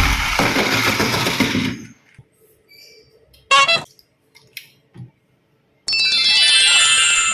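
A loud, noisy sound that cuts off about two seconds in, then a few small clicks, a brief electronic blip, and near the end a short electronic jingle of stepped beeps, as from a toy's sound chip.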